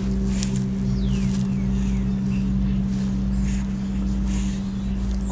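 Steady low mechanical hum of a machine running, holding one pitch throughout, with a few short high chirps above it.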